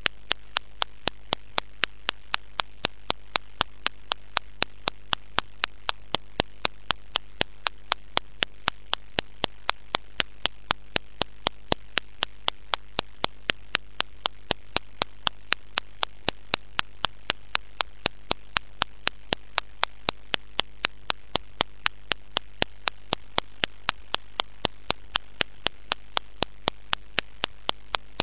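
Sharp, perfectly even clicks, about three a second, over a steady hum, with no music or voices audible.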